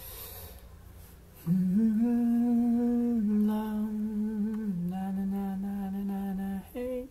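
Someone humming a slow, wordless tune of long held notes, starting about one and a half seconds in. Each note is held a second or two, stepping a little lower in pitch, with a short higher note near the end.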